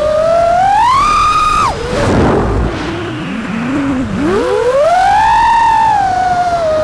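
Brushless motors of an FPV quadcopter (Botgrinder V4 1750kv, on Bluejay ESC firmware) whining with the throttle. The pitch rises and holds high, cuts off sharply about two seconds in, and drops to a low, wavering tone under a rush of wind. Near the end it climbs back to a high whine and settles.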